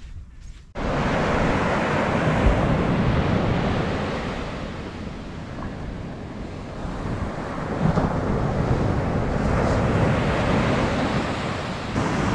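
Atlantic surf breaking on a sandy beach, with wind rushing over the microphone. The noise starts suddenly a little under a second in and eases off for a few seconds in the middle before building again.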